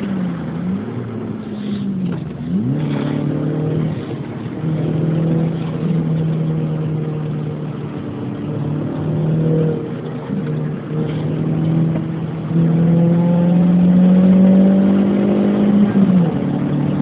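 Skoda Fabia 1.4 16-valve four-cylinder petrol engine heard from inside its cabin, driven hard: the engine note dips and climbs again twice in the first three seconds as it changes gear, holds steady, then climbs and gets louder for a few seconds before falling away sharply near the end.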